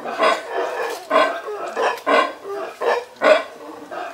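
Howler monkey calls: a run of short, repeated calls about half a second apart.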